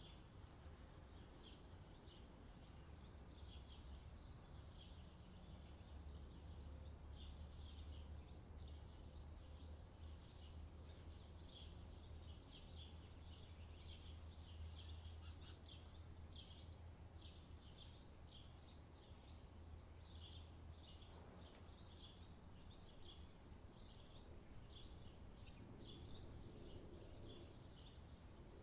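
Faint outdoor summer ambience: many small birds chirping continuously, several short chirps a second, over a low steady rumble.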